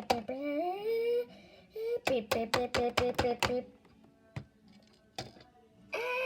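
Wall-E-style robot voice sounds. A rising chirp comes first, then a quick run of short pitched beeps at about four a second. Near the end a held electronic tone bends downward.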